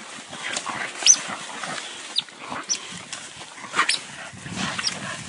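Dogs fighting a tejón (coati) in dry leaf litter: several short, sharp, high squeals or yelps, each falling in pitch, over scuffling and rustling leaves.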